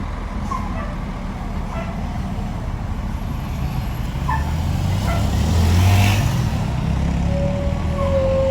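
A bus engine rumbling as the bus passes close by, growing loudest about six seconds in.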